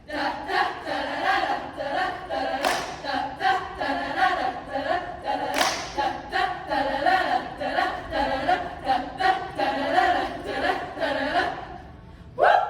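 Choir singing a cappella, with hand claps keeping a steady beat.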